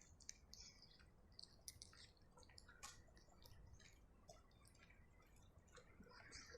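A ginger cat eating: faint, irregular little clicks of chewing and mouth sounds, several a second.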